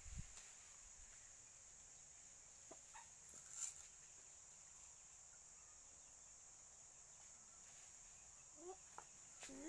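Near silence: a steady high-pitched drone, with a few faint short animal calls that bend in pitch near the end.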